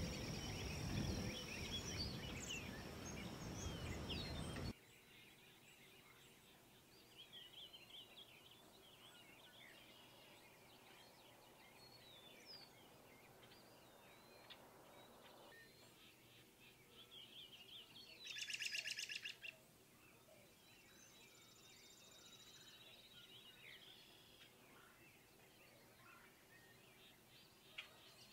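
Faint rural outdoor ambience: a steady high insect buzz over a noise bed that cuts off suddenly about five seconds in. Faint scattered bird chirps follow, with one louder trilled bird call lasting about a second a little past the middle.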